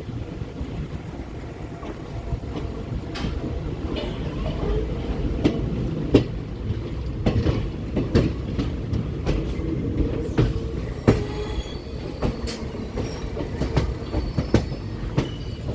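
Aravalli Express passenger coaches rolling past as the train pulls out, wheels clacking over rail joints at irregular intervals above a steady low rumble. Faint high wheel squeals join in the second half.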